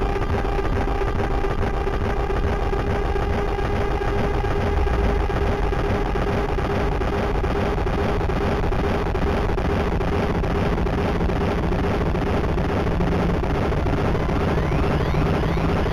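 San Francisco cable car running along its slotted track: steady, even running noise with a constant hum.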